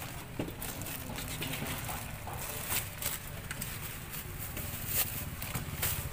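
Thin plastic bag crinkling and rustling in short sharp crackles as it is handled and filled with fried batagor pieces, over a steady low hum.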